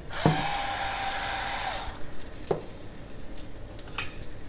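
Electric pepper mill grinding seasoning into a bowl: a steady motor whine over a gritty grinding hiss for about a second and a half. Two light clicks follow.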